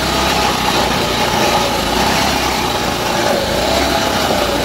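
Petrol-engined cylinder (reel) lawnmower running steadily while mowing grass, its engine hum wavering slightly in pitch.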